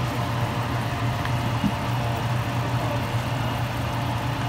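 A steady low hum under an even hiss of the pork spareribs simmering in their rendered fat.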